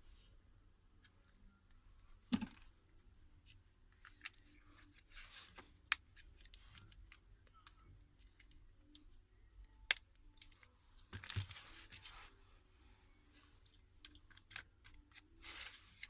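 Scattered small clicks, taps and scrapes of hand tools and small parts on an opened smartphone's internals, with a duller knock about eleven seconds in.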